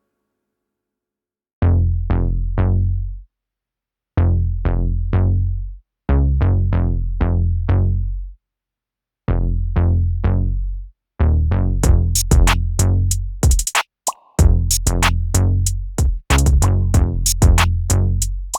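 Electronic deep-bass test music: after a second and a half of silence, short phrases of struck, quickly decaying notes with heavy low bass come in, separated by brief pauses. About twelve seconds in, fast drum-machine hi-hat ticks join and the beat fills out.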